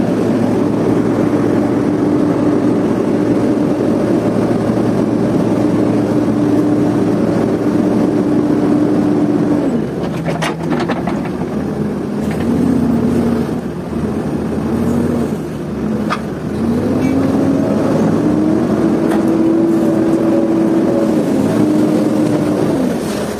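JCB backhoe loader's diesel engine running hard under load as it pushes a loaded Tata truck uphill with its front bucket. The engine note holds steady, drops about ten seconds in, then rises and falls several times, with a few sharp knocks in between.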